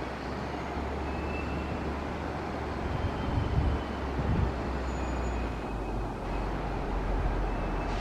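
Steady low rumble and noise of an EP2D electric multiple unit approaching along the track, with a slight swell in loudness a few seconds in.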